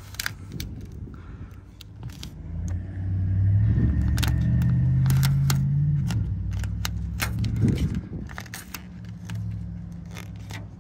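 Vinyl wrap film crinkling and crackling in quick, irregular clicks as it is folded and pressed by hand over a grille badge. Under it a vehicle engine hums, swelling for a few seconds in the middle and then fading.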